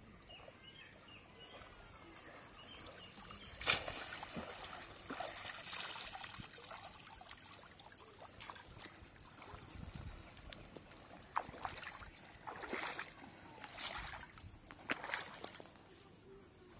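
Water trickling and splashing as a wet cast net is drawn out of shallow water and carried by someone wading through it, in uneven bursts. A single sharp knock about four seconds in is the loudest sound.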